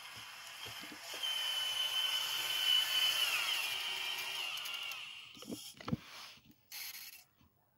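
Electric drive motor and gearbox of an RC Claas Xerion 5000 model tractor whining as it drives, the pitch steady and then falling as the tractor slows to a stop. A few sharp knocks follow near the end as it halts.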